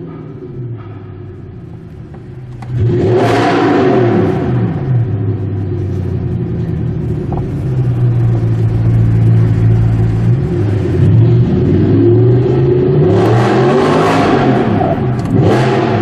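Audi R8 V8 with an Armytrix exhaust, running low at first, then about three seconds in the revs jump sharply and rise and fall. It holds a steady engine note for several seconds, then revs up and down twice more near the end, inside a multi-storey car park.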